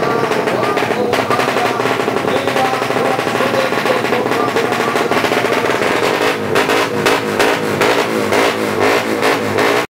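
Several drag-racing motorcycle engines revving hard at once, their pitch rising and falling rapidly as the throttles are blipped, with a crackling exhaust rattle over them.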